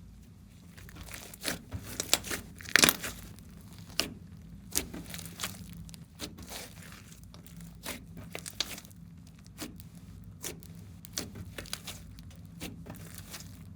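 Glossy slime being squeezed and pressed by hand, giving irregular sticky clicks and pops, the loudest about three seconds in.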